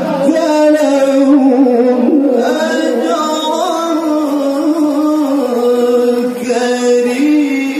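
Male qari reciting the Quran in the melodic tilawah style into a microphone: one voice singing long held notes with wavering, ornamented turns in pitch.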